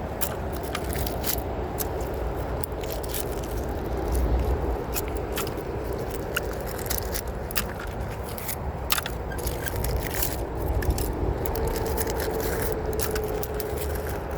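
Rusty wire and scrap metal being scraped and pulled off a magnet-fishing magnet, with many irregular sharp clicks and clinks over a continuous scraping.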